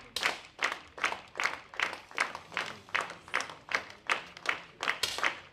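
Spectators clapping in unison, a steady beat of about three claps a second.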